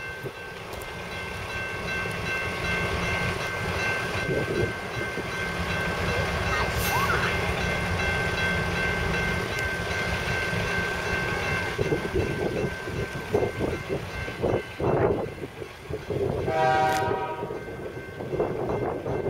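Diesel freight train approaching a grade crossing: a steady rumble with a high ringing tone held throughout, uneven knocks in the last few seconds, and a short horn blast near the end.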